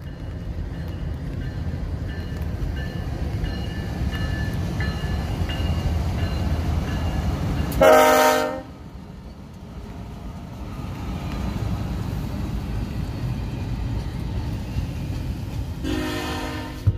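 Union Pacific GE diesel locomotives (a C45AH and a C44ACM) pulling an intermodal double-stack train: a low rumble builds as the train approaches. About eight seconds in, a short, loud blast on the air horn sounds as the locomotives pass, and then the rumble of the container cars rolling by follows.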